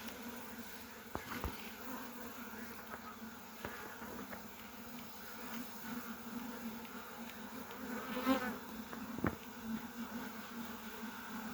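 Honeybees buzzing steadily around an opened hive, with a few sharp knocks mixed in and one brief, louder buzz near the end.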